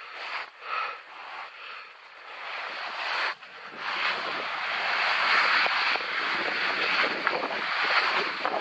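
Skis scraping and sliding on snow during a descent, mixed with wind rushing over the camera microphone. A few short scrapes come first, then about three seconds in it becomes a steady, louder rush.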